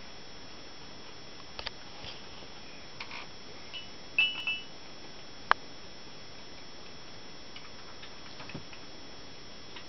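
A newborn kitten being handled in a cloth: a brief high squeak about four seconds in and a few sharp clicks, over steady background hiss.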